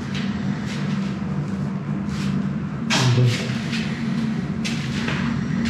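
A steady low hum, with a few short soft scuffs over it.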